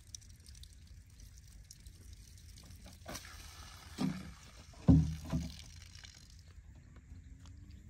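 Hollow thumps of a plastic jerrycan knocking against the pump and being set down on the ground, the loudest about five seconds in, after water has been poured into the diesel water pump to prime it. A short splash of water comes about three seconds in.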